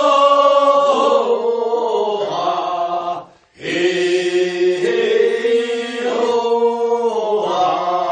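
Group of men singing unaccompanied in unison the long, drawn-out refrain of a Korean rice-paddy weeding work song (non maeneun sori, first weeding), in two held phrases with a short breath break about three seconds in.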